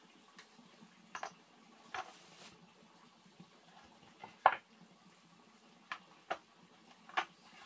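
Handling of a paper booklet and a small item on a wooden table: a few scattered light taps and paper rustles, the loudest tap about four and a half seconds in.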